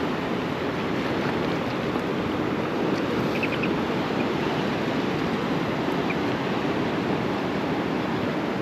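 Sea surf washing on the shore: a steady, even rushing noise.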